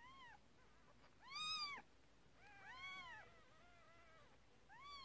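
Newborn kittens mewing: about five short, high-pitched mews, each rising and falling in pitch, the loudest about a second and a half in, with two overlapping near the middle.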